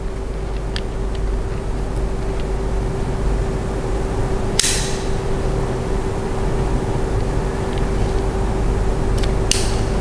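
Steady machine hum with one constant mid-pitched tone over a low rumble. Two short rustles of handling, about halfway and just before the end.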